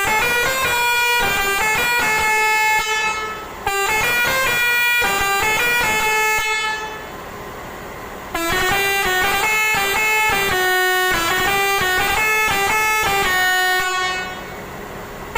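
Six-trumpet Basuri telolet bus horn, an Indian-made set driven by its Basuri module, playing a melody of stepped, held notes. It breaks off briefly about three and a half seconds in, falls away for over a second around the middle, and stops again near the end.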